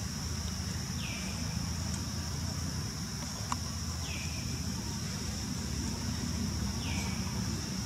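A steady high insect drone over a low rumble, with a bird giving a short falling call three times, about three seconds apart.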